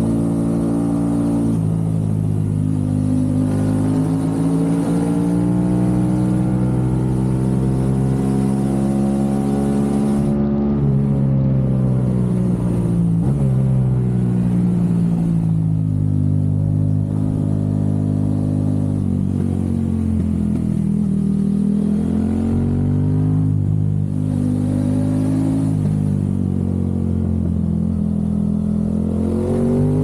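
Aprilia RS660's 659 cc parallel-twin engine through a low-mounted Mivv Delta Race exhaust, pulling through the gears on a ride. The pitch climbs slowly as the throttle is held open, drops at several gear changes or throttle closures, and climbs again near the end.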